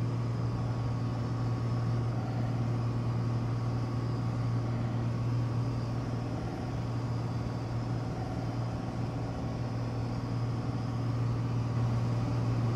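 Propeller engine of a WWII fighter plane running steadily: a low, even hum.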